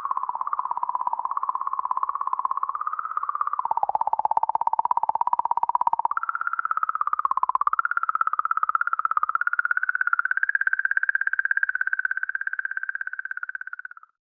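Space radio or plasma-wave data converted into sound: a single buzzing, wavering electronic-like tone. It dips in pitch about four seconds in, steps higher near six seconds, holds there, and cuts off near the end.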